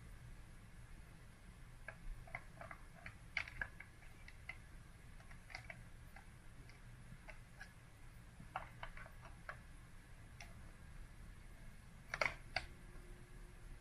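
Faint, irregular clicks and ticks over a low rumble, in small clusters, with the sharpest pair near the end followed by a faint steady hum.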